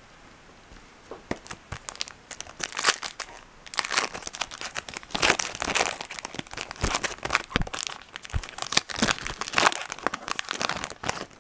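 Foil wrapper of a Topps Chrome trading-card pack being torn open and crumpled: dense, irregular crinkling that starts about a second in and goes on to near the end.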